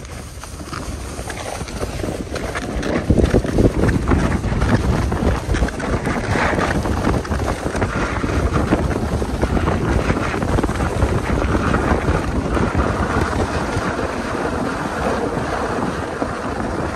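Wind rushing and buffeting over the microphone during a fast downhill run on the snow, loud and steady, getting louder over the first few seconds as speed builds.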